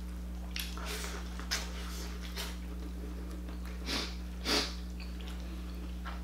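Close mouth sounds of eating boiled corn on the cob: biting and chewing, with a few short sniffs, the loudest two about four seconds in. A steady low hum runs underneath.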